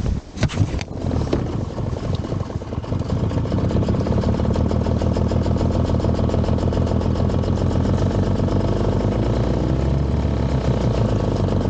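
Boat engine starting: a few knocks about half a second in, then it catches and settles into a steady idle.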